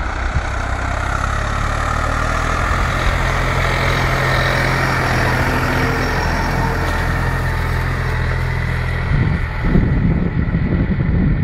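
New Holland TT55 tractor's diesel engine running steadily under load, pulling a chisel plough through the soil. About nine seconds in, gusty wind buffeting on the microphone joins in.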